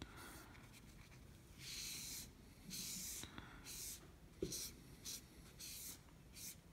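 Cotton ball damp with nail polish remover rubbed back and forth over a handgun slide, a soft scrubbing swish with each of several passes, wiping the excess polish off the color-filled engraving. One soft knock about four seconds in is the loudest moment.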